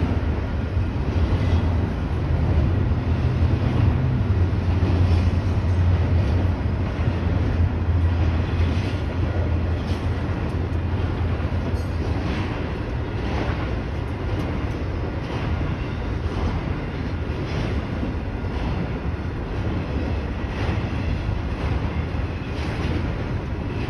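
Double-stack intermodal container train rolling past: a steady rumble of steel wheels on rail, with recurring clacks from the wheels. A deep low rumble is strongest at first and eases about ten seconds in.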